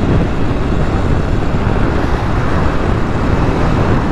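Steady wind rush over the microphone from riding a Sur-Ron electric dirt bike, with road noise under it.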